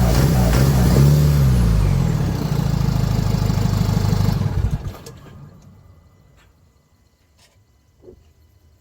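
Jeep Wrangler JK's common-rail diesel engine running, its pitch shifting for the first second or so, then steady, and shut off about five seconds in. A faint knock follows near the end.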